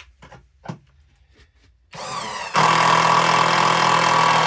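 Parkside cordless impact driver: the motor spins up about two seconds in with a short rising whine, then the impact mechanism engages and hammers loudly and steadily.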